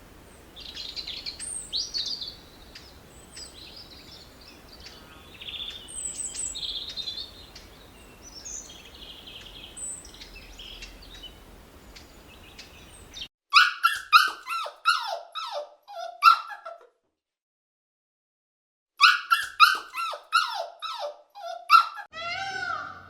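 A dog yelping in quick series of short yips that drop in pitch, in two bursts, after a long stretch of faint high squeaks over a hiss.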